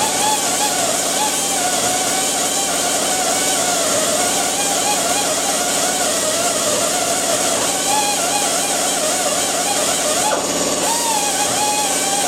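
Angle grinder running on sheet steel, its whine wavering up and down as it is pressed on and eased off.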